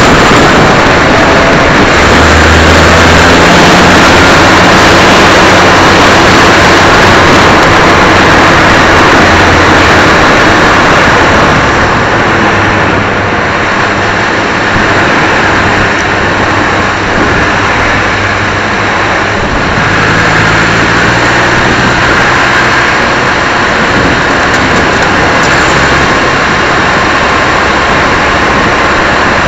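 Suzuki Swift race car at racing speed, heard from a low-mounted onboard camera: loud, distorting wind rush over the microphone covers the engine running hard, whose pitch shifts in steps with gear changes. The noise eases somewhat for several seconds in the middle.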